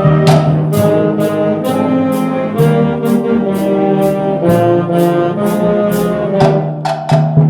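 A school concert band playing: brass and woodwinds hold chords over steady percussion hits, about three a second.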